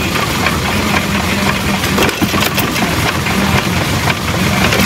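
1927 Maytag washing-machine engine, a small two-stroke gasoline motor, running steadily with fast, even firing while belted to a corn grinder.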